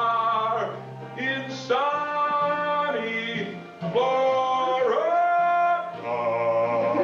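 Man singing the closing phrases of a comic country-style show song, holding long notes, over a steady instrumental accompaniment.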